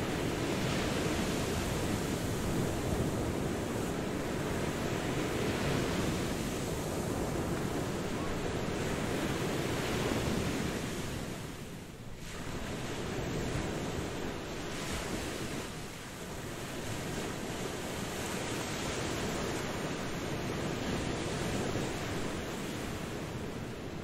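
Ocean surf: waves washing in a continuous rush that swells and eases, dipping briefly about halfway through and again a few seconds later.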